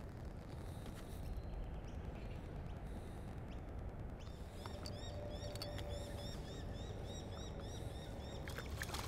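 Steady low rumble around a small boat while an angler plays a hooked bream. About halfway through, an even run of short high chirps, about four a second, sounds over a faint steady hum. Near the end, a few sharp clicks and splashes come as the fish thrashes at the surface.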